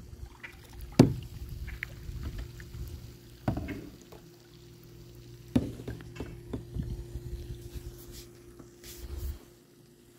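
Small boat moving across a lake: water washing along the hull under a low steady hum, with sharp knocks against the boat about a second in, near 3.5 seconds and near 5.5 seconds.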